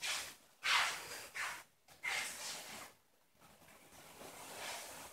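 Soft swishing on tatami mats: several brief brushes of feet in tabi socks sliding over the straw matting, with rustling clothing, as someone walks across the room. They fade to a faint rustle about three seconds in.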